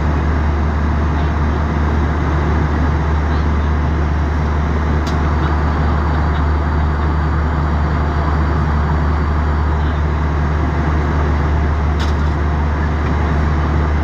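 Steady drone of airliner cabin noise in flight, engines and rushing air, heaviest in the low range and unchanging throughout. Two faint clicks, about five seconds in and near the end.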